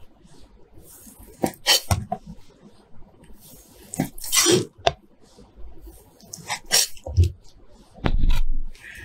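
Kitchen knife slicing through raw salmon fillet: a series of short, sharp slicing strokes, the blade swishing through the flesh and knocking on the cutting board, with a longer, louder cut near the end.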